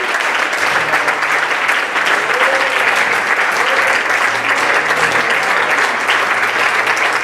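A church congregation applauding steadily, a dense clapping from many hands.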